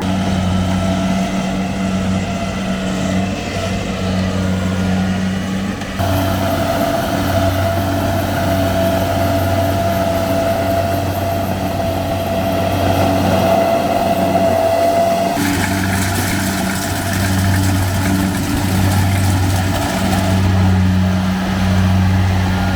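Kubota combine harvester running, its diesel engine giving a steady low drone. A high steady whine joins in about six seconds in and stops abruptly about fifteen seconds in.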